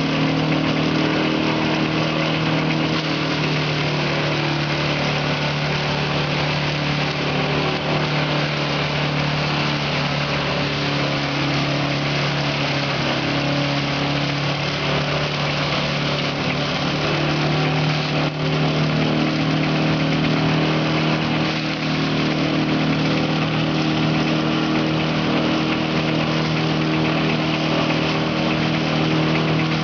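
Engine-driven multipurpose shredder (broyeur) running steadily while fresh green plants are fed into it. Its motor hums without a break, over a dense hiss from the chopping.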